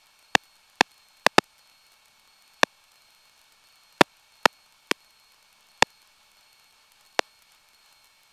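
About ten sharp, irregularly spaced clicks or pops on a quiet aircraft radio and intercom audio feed, over a faint steady hiss and a thin high electrical whine.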